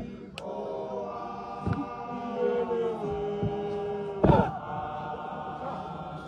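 Zion Christian Church mokhukhu men's group chanting in unison, long held notes from many male voices. A few heavy stamps of boots on the ground break in, the loudest about four seconds in.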